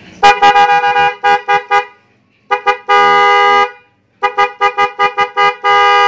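A pair of Denso snail horns on a Vespa Matic scooter, sounded from the handlebar horn button as a test of the new installation. First a quick run of short beeps, then a couple of taps and a longer blast about halfway, then another run of short beeps with a held blast near the end.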